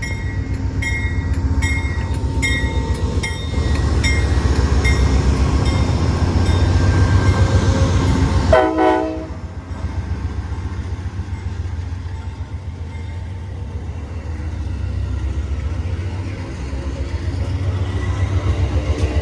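Amtrak diesel passenger locomotive pulling out, its bell ringing about twice a second for the first few seconds while the engine's rumble builds. A short horn blast sounds about eight and a half seconds in, then the train rolls steadily past.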